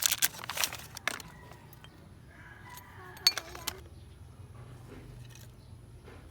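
Small metal parts being handled, most likely the new brake pads: a rustling clatter of clicks in the first second, then a few light metallic clicks and clinks a little over three seconds in.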